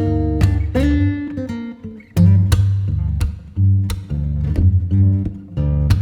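Background music: acoustic guitar, plucked and strummed in a rhythmic pattern.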